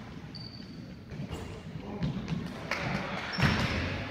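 Basketball game in a gymnasium: a ball bouncing on the hardwood court and players' voices, with a few brief high squeaks. The loudest moment comes a little past three seconds in.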